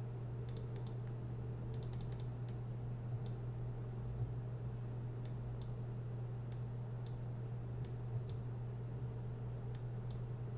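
Irregular clicks of computer keys being pressed, a few at a time with pauses between, over a steady low hum.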